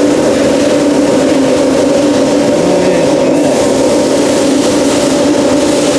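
Steady factory machinery noise: a loud, even hum with a broad hiss, with no strokes or rhythm.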